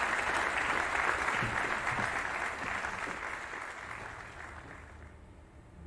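Large outdoor audience applauding, the clapping thinning out and dying away about five seconds in.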